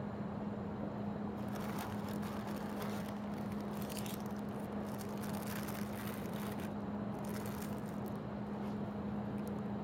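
Paper rustling and crinkling as a donut is handled, in irregular bursts from about a second in until about eight seconds. Underneath are steady distant city traffic noise and a low constant hum.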